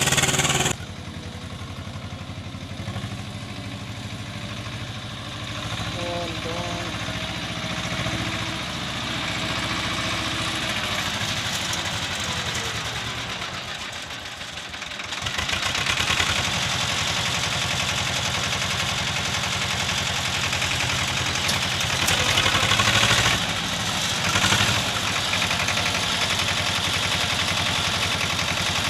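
Heavy diesel engine running with an even firing beat. It works lower for a stretch, then picks up and runs louder from about fifteen seconds in.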